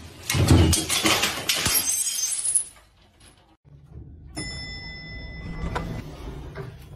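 A loud crash and clatter of household items knocked off a washing machine by a cat, with glassy clinks, lasting about two and a half seconds. About a second and a half later comes a fainter stretch with a thin, high, steady tone.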